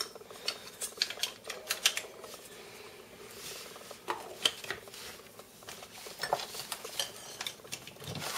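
Scattered clicks, taps and light clatter of small kitchen containers, a glass jar and a grinder, being picked up, handled and set down on a counter.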